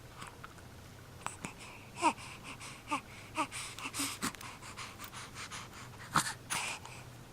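Short snuffling and snorting breaths through the nose, with a few brief squeaky notes that fall in pitch about two to three and a half seconds in: the nose tickling just before a sneeze.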